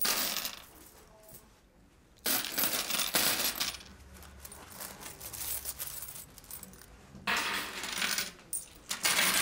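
A heap of metal coins clinking and scraping on a wooden counter as a hand scoops and spreads them. It comes in three bursts: one right at the start, one from about two to nearly four seconds in, and a last one from about seven seconds in.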